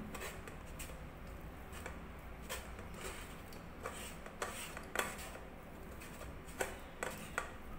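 A steel spoon pressing and scraping boiled potato through a fine stainless steel mesh flour sieve, with scattered light clicks of spoon on metal.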